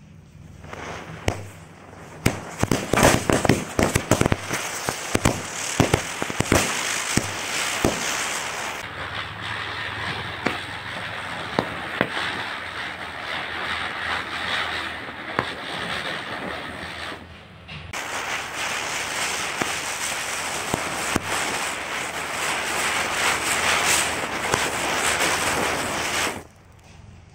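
A chakri ground spinner hissing as it sprays sparks while the ring of small bijli bomb firecrackers around it goes off in a rapid, irregular string of sharp bangs, densest from about two to eight seconds in. After that come a steady hiss of burning sparks and scattered cracks, which briefly drop away and resume near the middle.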